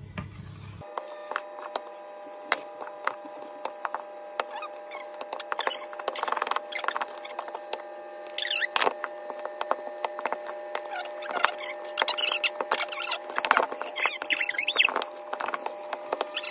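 Wooden spoon stirring thick cake batter in a stainless-steel mixing bowl: repeated scrapes, squeaks and light knocks of the spoon against the metal, with more flour tipped in partway through, over a steady background tone.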